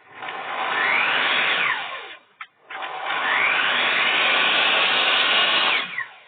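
Electric cutting machine's motor switched on twice. Each time it spins up with a rising whine, runs briefly and winds down with a falling whine when switched off; the second run lasts longer.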